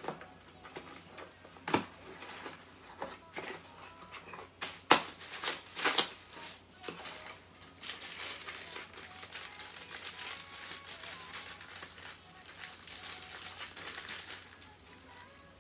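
A cardboard parcel being opened by hand: packing tape snipped and ripped off in a few sharp tears about two, five and six seconds in, the loudest near five. Then a bubble-wrap-filled plastic bag crinkles steadily as it is handled and lifted out of the box.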